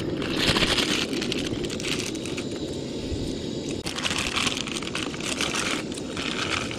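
Plastic instant-ramen packets crinkling and tearing open in several short bursts, over a steady low rushing noise.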